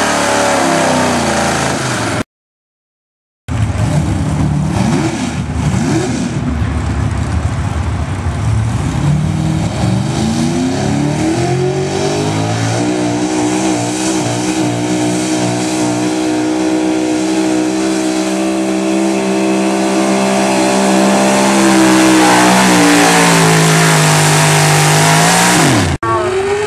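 Gasoline pickup truck engines running at full throttle while pulling a sled. After a brief cut to silence about two seconds in, the revs climb, then hold high and steady for over ten seconds, then fall away abruptly near the end.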